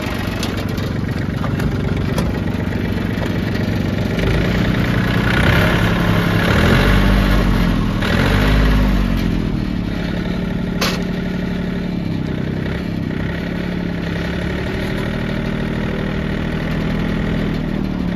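John Deere 790 compact tractor's three-cylinder diesel engine running. It is revved up and back down a few times about a third of the way in, then settles to a steady run.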